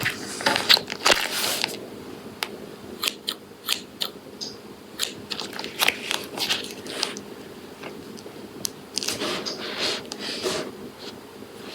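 Scissors snipping into a foam squishy toy: a run of sharp, irregular snips, with longer rustling swishes at the start and again near the end.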